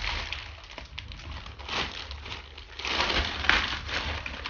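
Plastic mailer bag being pulled open and handled, giving a crackly crinkling that gets louder and busier about three seconds in.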